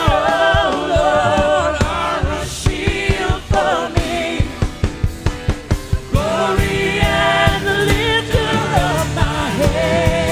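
Gospel worship song: voices singing together over a steady drum beat, with a fuller low backing coming in about six seconds in.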